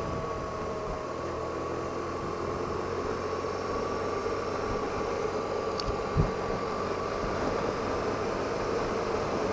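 BMW R1200RT motorcycle's boxer-twin engine running steadily while cruising, mixed with wind noise. A brief low thump comes about six seconds in.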